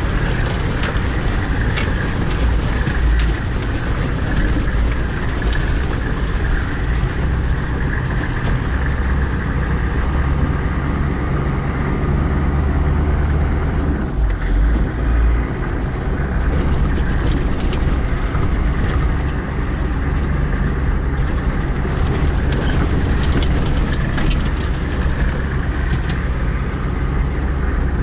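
Four-wheel-drive vehicle's engine running at low speed over a rough, rocky off-road track, heard from inside the cabin as a steady low rumble, with scattered knocks and rattles from the body jolting over rocks.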